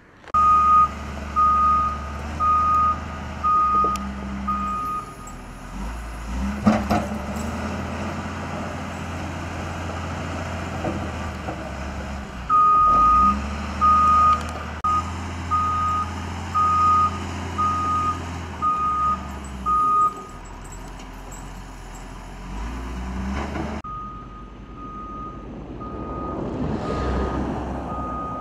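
Heavy vehicle's reversing alarm beeping steadily, about one and a half beeps a second, over a diesel engine running. The beeping stops and starts again twice.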